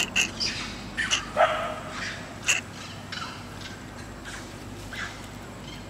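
A series of short, sharp animal calls, most of them in the first three seconds and fewer and fainter after that.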